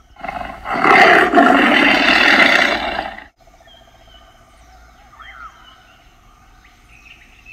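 A person roaring in imitation of a tiger: one loud, rough roar lasting about three seconds, then breaking off.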